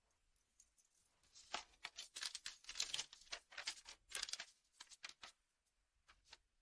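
Paper crinkling and rustling in short crackly bursts as a sheet is handled and unfolded.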